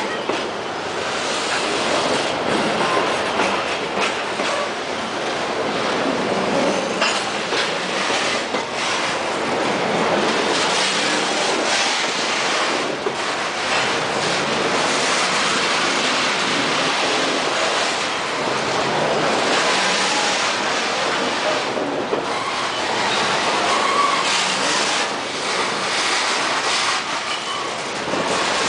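Loaded freight train of covered hopper cars rolling past, steel wheels clattering over the rail joints in a steady stream of clicks, with a brief wheel squeal now and then.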